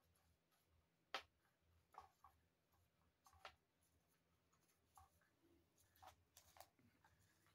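Near silence broken by faint, scattered light taps and scratches, about a dozen in all, the sharpest about a second in.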